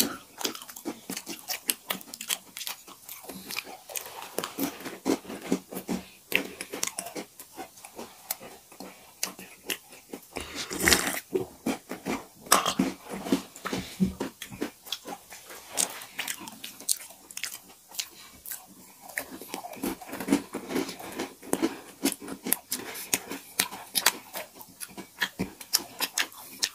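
Close-miked chewing and crunching of crisp chocolate cookies, with many irregular sharp crunches and one louder crunch about eleven seconds in.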